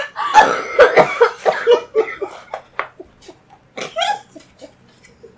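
Several people laughing hard and coughing. The laughter is loudest over the first two seconds, then trails off into short scattered gasps and coughs.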